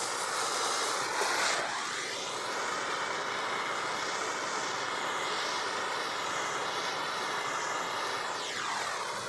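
Handheld gas torch flame hissing steadily as it scorches a wooden board. The tone of the hiss sweeps downward as the torch moves, once about two seconds in and again near the end.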